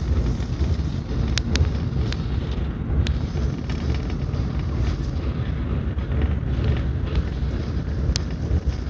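Steady low rumble of a train running at speed, heard from inside the carriage, with a few short sharp clicks between one and three seconds in and again near the end.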